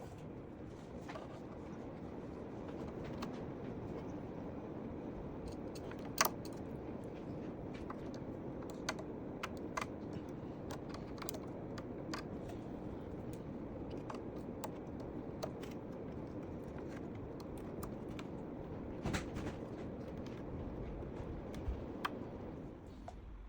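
Scattered light clicks and taps, as of small plastic and metal parts being handled, over a steady low hum, with a sharper click about six seconds in and a few more near the end.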